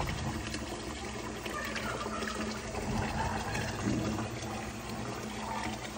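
Kitchen faucet running a steady stream of water into a partly filled sink.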